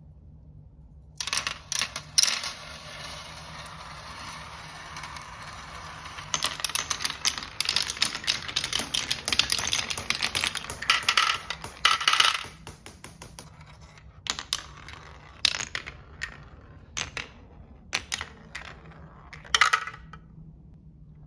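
Many marbles rolling and clattering down a wooden marble run: a dense rush of clicks and rolling from about a second in until about halfway, then fewer, scattered clicks.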